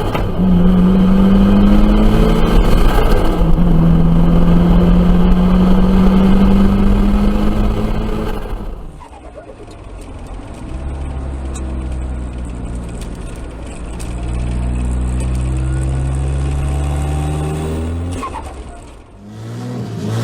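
Turbocharged car engines accelerating hard at high revs. The first engine note climbs slowly and falls away abruptly about nine seconds in as the throttle is lifted. A second car then pulls hard with a rising note until a cut near the end.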